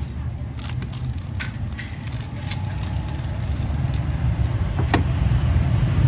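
Steady low rumble of road traffic, with a few light metallic clicks and taps as a Zippo lighter is handled; the sharpest click comes about five seconds in.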